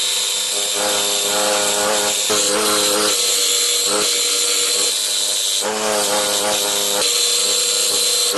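Scroll saw running steadily while cutting out a piece of a wooden sign, its motor hum shifting slightly in pitch a few times as the blade works through the cut.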